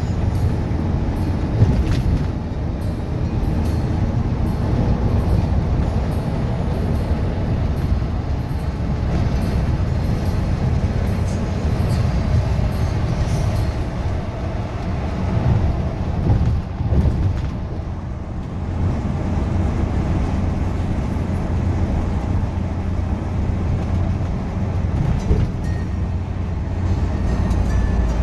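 Steady low rumble of a coach's engine and tyres, heard from inside the cabin while it cruises on a highway.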